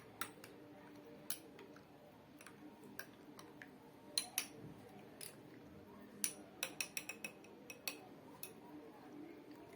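A spoon stirring milk in a glass, clinking faintly against the glass in irregular taps, with a quicker run of clinks a little past the middle.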